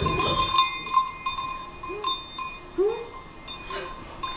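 Small metal bells ringing, struck lightly several times so their tones hang on, with a few short squeaky vocal sounds in between.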